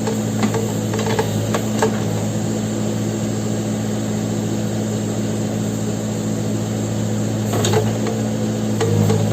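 Backhoe loader's diesel engine running steadily, with a few sharp knocks in the first two seconds and again near the end.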